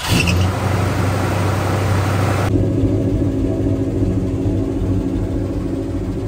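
Old Ford pickup truck's engine idling steadily, heard at the exhaust tailpipe. A high hiss over the idle drops away suddenly about two and a half seconds in, leaving a duller, steady rumble.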